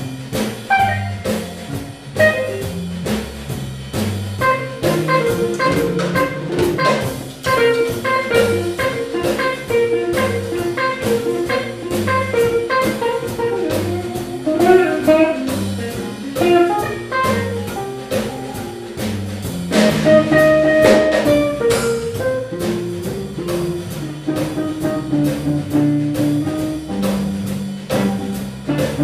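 Small jazz band playing live: electric guitar, bass, drum kit with cymbals, and a brass horn. A long held note stands out about twenty seconds in.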